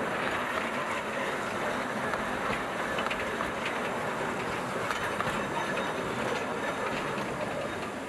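Narrow-gauge forest railway passenger cars rolling past close by: a steady rumble of wheels on rail with light irregular clicks. The level drops slightly at the very end as the last car goes by.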